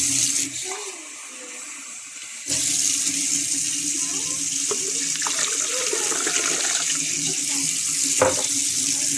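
Water running steadily from a tap or spout, getting louder about two and a half seconds in, with a steady low hum underneath.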